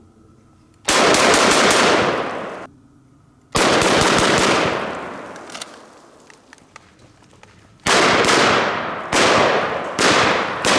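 IWI Tavor TS12 semi-automatic 12-gauge shotgun fired rapidly in about five quick strings of shots, each echoing away, the last three close together near the end.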